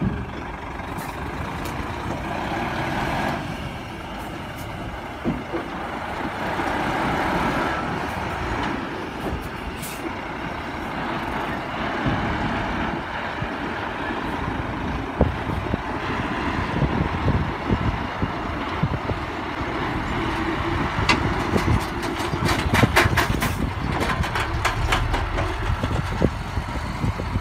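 Heavy Hyundai Xcient diesel dump trucks running while a raised tipper bed unloads soil and rock. Near the end there is a run of sharp clicks and knocks.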